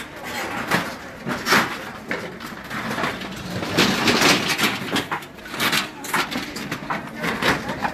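A crowd of people milling and talking over one another, mixed with irregular rustling and knocks as the handheld phone is jostled.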